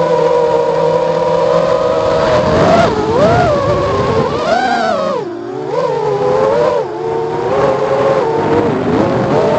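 FPV quadcopter's brushless motors and propellers whining, heard from the onboard camera. The pitch holds steady for about two seconds, then rises and falls repeatedly as the throttle changes.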